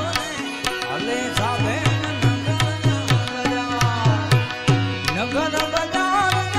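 Indian background music with hand-drum percussion, the low drum strokes bending in pitch, under sharp clicking percussion and a melodic instrument line.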